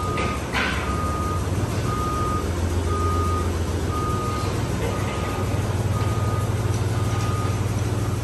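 Forklift engine running with its reversing alarm sounding a steady high beep about once a second, while the forklift backs up. A single knock comes about half a second in.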